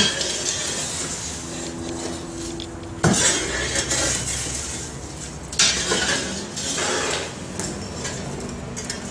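A long-handled metal tool scraping and dragging burning wood and embers across the floor of a wood-fired oven as the fire is split to both sides, with clinks and clatter. Several long scraping strokes, each starting sharply: one at the start, one about three seconds in and one near six seconds.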